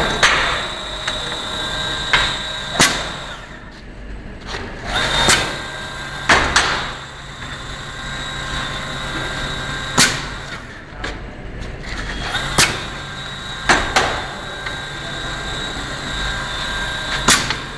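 PU shoe sole pouring machine with its rotary mold conveyor running: a steady mechanical hum and whine broken by sharp metallic clacks, about nine of them at uneven intervals.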